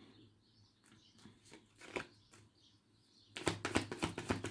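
Tarot cards being shuffled by hand: a few soft card flicks and rustles, then from about three seconds in a quick run of card slaps and flutters.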